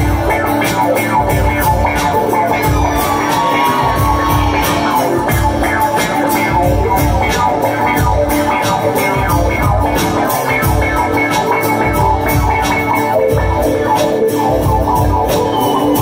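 Live bluegrass band music: banjo, fiddle and acoustic guitar playing over a steady, driving beat with a heavy bass pulse.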